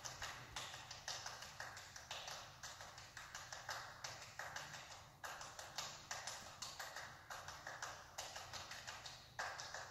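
Two people clapping a hand-percussion piece: a fast, steady run of claps, several a second, some made with cupped hands.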